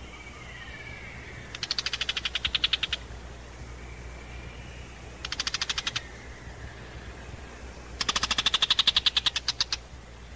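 Tiger shrike's harsh scolding rattle: three bursts of rapid clicking chatter, the last the longest, an alarm call mobbing a Eurasian eagle-owl.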